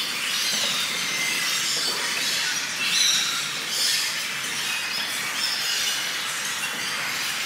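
Sports shoes squeaking on a sports hall floor: many short, high squeaks coming irregularly over the hall's steady background noise.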